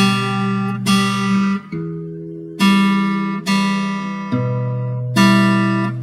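Acoustic guitar strummed in single strokes about once a second, each chord left to ring out. The chord changes every couple of strokes.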